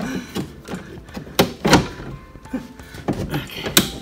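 Metal windshield-wiper linkage knocking and clunking against the car's cowl as it is wrestled out, with about four sharp knocks among lighter rattles.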